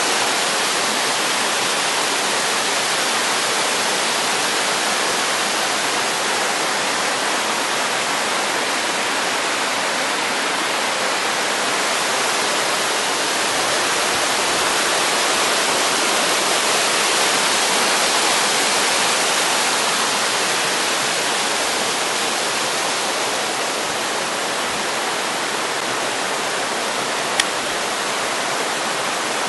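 Mountain stream rushing down a small rocky cascade: a steady, loud rush of falling water. One brief click sounds near the end.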